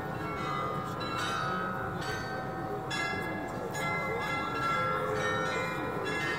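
Bells of the Munich Rathaus-Glockenspiel playing a slow tune, a new note struck about once a second while the earlier ones ring on.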